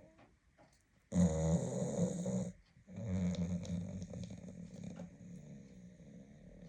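Dog snoring in its sleep: two long rasping snores, one about a second in and a longer one starting about three seconds in that slowly fades.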